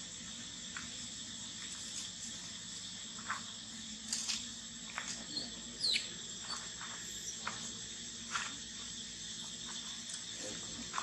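A steady, high-pitched drone of insects, with scattered short clicks and rustles and a brief falling high squeak about six seconds in.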